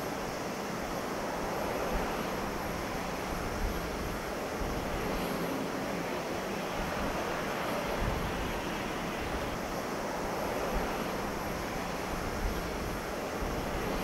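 Twin PW123-series turboprop engines and propellers of a Bombardier Dash 8-300 (DHC-8-315Q) on low approach: a steady drone, with gusts of wind rumbling on the microphone.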